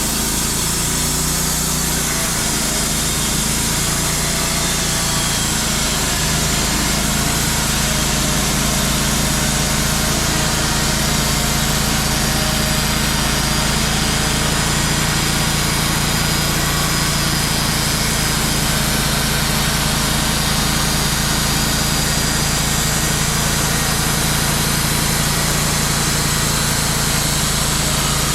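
Wood-Mizer portable bandsaw sawmill running steadily, its engine under load as the band blade saws through a black walnut log.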